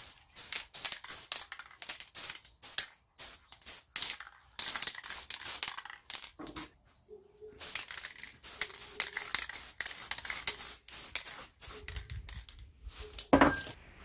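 Aerosol spray paint can hissing in short spurts and a few longer sprays as coats of red paint go onto plastic parts. A sharp knock near the end.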